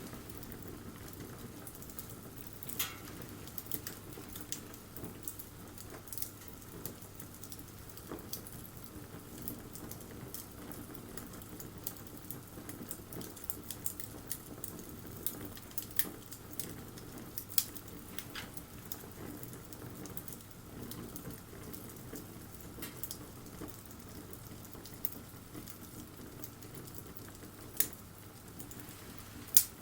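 Wood bonfire crackling: irregular sharp pops and snaps over a steady low background, with a louder pop near the end.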